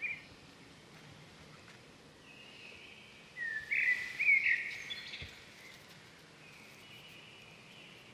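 Outdoor grassland ambience with birds calling: a short call right at the start, then a louder burst of chirping, sliding calls from about three and a half to five seconds in, over a faint steady background hiss.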